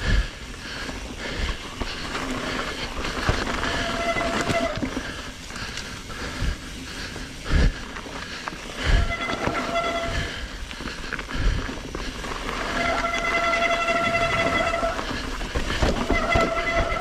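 Mountain bike riding down a rough dirt trail: a rolling rush of tyres on dirt with frequent knocks from bumps. A steady high whine of the rear freehub buzzing comes in several times, each time for one to two seconds, during stretches of coasting.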